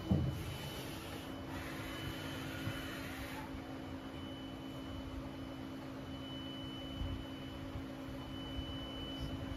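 Double-turret slant-bed CNC lathe running: a steady machine hum with a faint high whine that comes and goes as the turret slides in toward the spindle. A clunk right at the start, and a hiss over the first three seconds or so.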